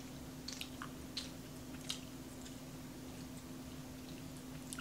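Close-up eating sounds: wet chewing and mouth smacks, with a few short sharp clicks in the first two seconds and another near the end, over a faint steady hum.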